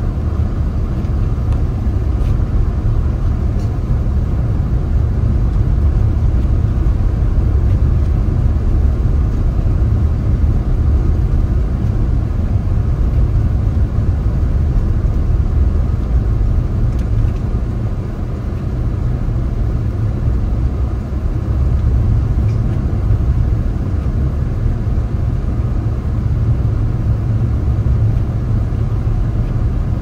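Steady low rumble of a car driving on a snowy road: road, tyre and engine noise at an even pace.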